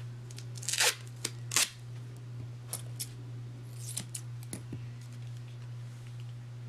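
Black duct tape being pulled and cut into strips: a cluster of loud sharp rips or snips just before one second in and another at about a second and a half, then quieter crackles and clicks as the tape is handled and pressed down.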